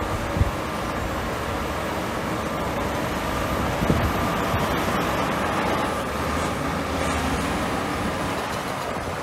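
Heavy diesel earthmoving machinery running steadily, with a sharp knock near the start and another about four seconds in.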